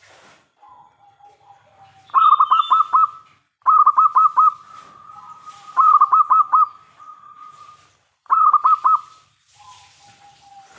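Zebra dove (perkutut) cooing: four loud bursts of quick, rolling coo notes, a few seconds apart. Fainter, lower notes sound between the bursts.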